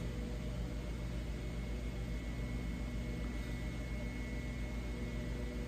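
Steady low machine hum of the workshop's background, several fixed tones over a faint hiss with no change in pitch or level.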